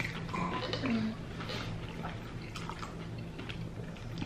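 Scattered soft clicks and crunches of people eating loaded tortilla-chip nachos, with some wet, squishy handling of the toppings, over a low steady hum.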